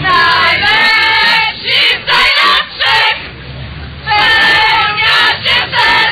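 A group of women shouting together in high voices, in loud bursts of up to a second and a half with short gaps between.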